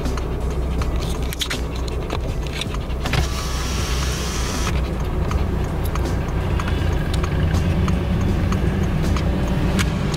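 Road and engine noise inside a moving car's cabin: a steady low rumble with scattered light clicks. About three seconds in there is a brief rush of hissing noise lasting under two seconds.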